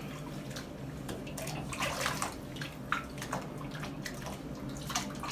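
Water splashing in irregular bursts as a ferret's legs are rinsed by hand in a bath, with a few louder splashes.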